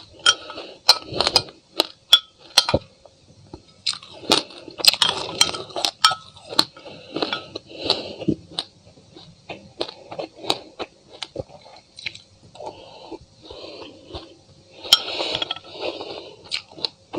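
Close-up crunching and chewing of a mouthful of sesame seeds and frozen passion fruit: many sharp, irregular crackles. A spoon clinks and scrapes against a glass mug now and then.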